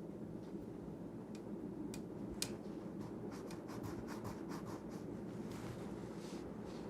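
Faint rubbing and small clicks of a Kydex holster being handled and pressed by hand, with a run of quick ticks about halfway through.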